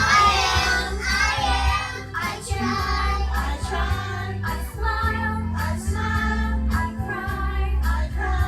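A group of young children singing together along with a recorded backing track that has a steady bass line.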